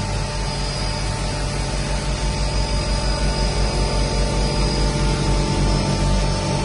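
Turboprop seaplane's engines and propellers running, heard from inside the cabin while the pilot works the overhead power levers on the water: a steady drone with a high whine and a throbbing low beat.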